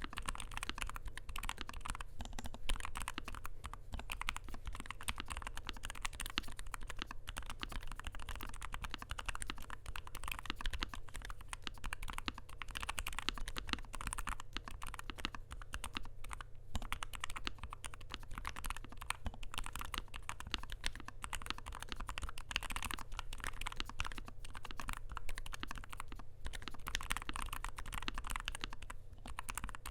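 Continuous typing on a NuPhy Air60 V2 low-profile mechanical keyboard with lubed Gateron Low-profile 2.0 Red linear switches: a dense, unbroken stream of keystroke clicks.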